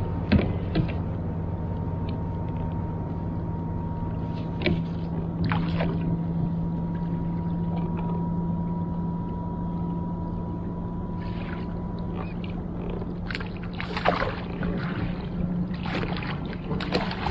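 A hooked kokanee splashing at the surface beside a kayak as it is brought to the landing net, with short splashes scattered through and several close together near the end. Under it runs a steady low mechanical hum.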